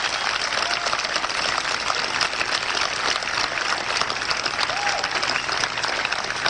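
Large crowd applauding steadily, with a voice or two calling out over the clapping.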